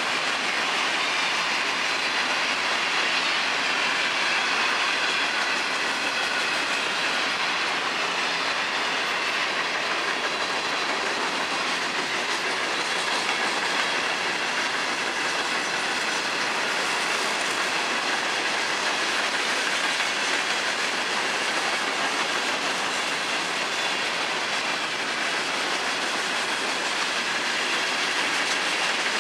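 Freight cars of a long train rolling past at speed: steel wheels running over the rails in a steady, unbroken clatter.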